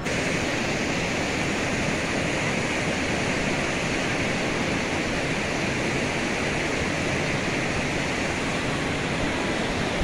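Fast mountain river rushing over boulders and rapids: a steady, even rush of water.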